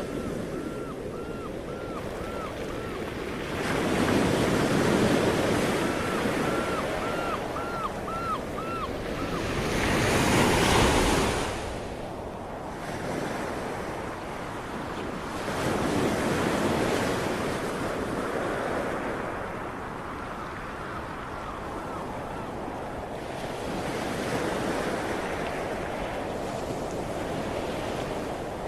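Sea waves breaking and washing up, in four swells over a steady hiss of surf, the loudest crash about ten seconds in.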